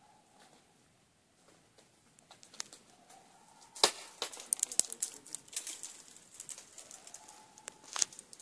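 Footsteps crunching and clattering on loose rock and gravel, starting about two seconds in, with a sharp crack about four seconds in and another near the end.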